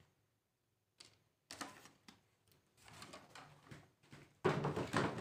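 Handling noises from a fashion doll and its cardboard box: a click, then scattered short rustles, with the loudest and densest rustling near the end.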